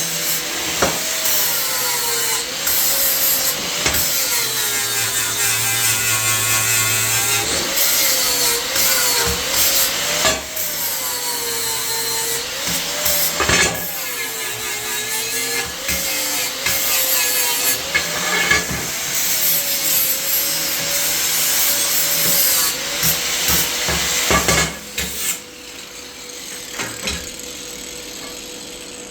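A power tool working on metal, its motor pitch dipping and recovering again and again as it is loaded, until it drops away about 25 seconds in.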